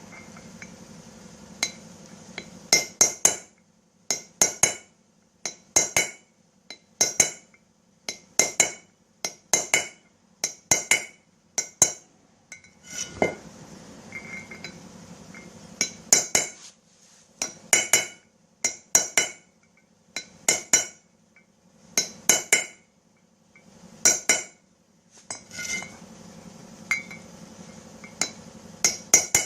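Hammer striking a steel center punch into the bearing bore of a front wheel hub: sharp metallic clinks in small clusters of two to four blows, every second or two. The punch marks raise the metal of a worn, loose bearing seat so the bearing will fit tight again.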